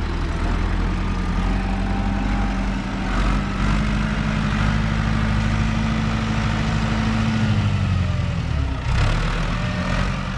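Massey Ferguson 397 tractor's diesel engine running steadily, its pitch dropping about eight seconds in as the revs come down, with a brief knock shortly after.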